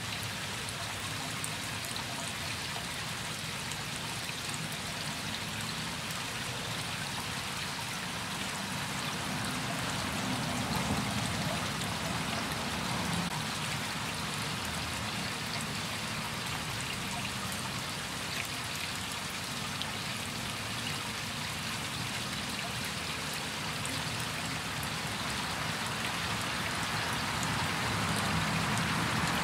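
Small garden-pond waterfall spilling over a flat stone ledge into the pond, a steady splashing and trickling of water.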